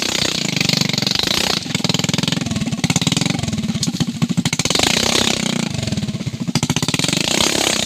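Motorcycle engine running with a rapid pulsing beat, its revs rising and falling.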